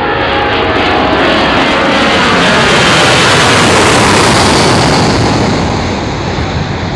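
An Airbus A340-300's four CFM56 turbofan engines at take-off thrust pass low overhead: a loud rush of jet noise that swells to its peak about halfway through and eases near the end. Engine tones fall in pitch as the aircraft goes over.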